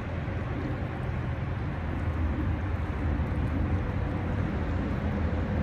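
Steady rush of a flowing stream's riffled current, under a low rumble of road traffic.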